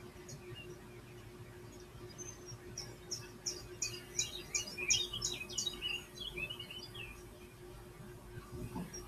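Birdsong from a bird video played through computer speakers: a run of quick high chirps starts about three seconds in, followed by lower falling notes, over a steady hum.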